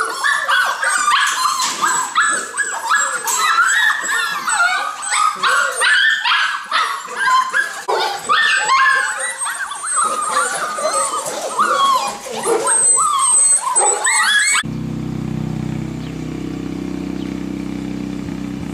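A crowd of golden retriever puppies yipping, whining and barking all at once in a dense, high-pitched chorus of overlapping calls. About fifteen seconds in it cuts off abruptly and gives way to a steady low hum.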